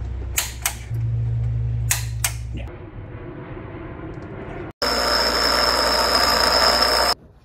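A few metal clicks of wrench work over a low hum. Then, about two thirds in, a bench grinder grinds down the steel head of a ratchet wrench: a loud grinding hiss with a steady high whine that cuts off suddenly.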